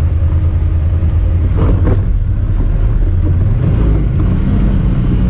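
Honda Talon 1000R side-by-side's parallel-twin engine running under way, its pitch rising about four seconds in.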